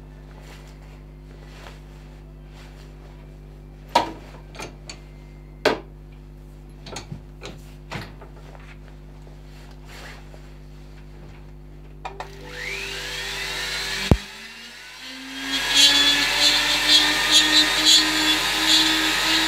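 A few knocks as the wooden carving is reset in a bench vise, then a small handheld rotary carving tool spins up with a rising whine about twelve seconds in. After a sharp click it runs on loudly, grinding into the wood to hollow a shallow concave in the top of the carved dog head.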